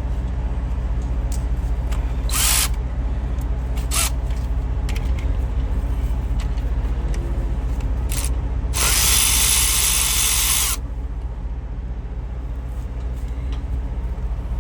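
A handheld power tool runs in short bursts about two, four and eight seconds in, then for about two seconds, over a steady low engine drone.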